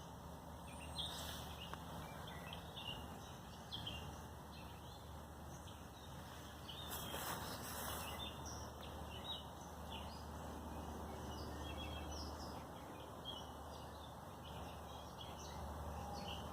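Outdoor ambience with small birds chirping on and off over a faint steady background hum, and a brief burst of noise about seven seconds in.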